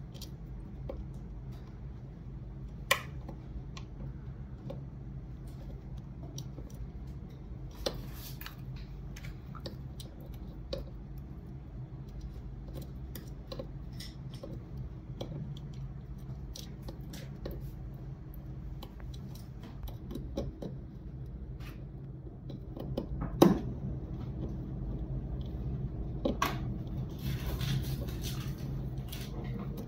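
Jeweller's pliers clicking and tapping on a metal chain bracelet and steel bench block as stones are set into it: scattered small metallic clicks, a sharper one about three-quarters through, over a steady low hum.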